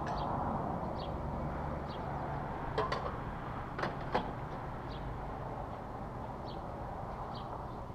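Steady low hum and rumble, like a vehicle standing nearby, with a few sharp clicks about three and four seconds in and faint short high chirps recurring every second or so.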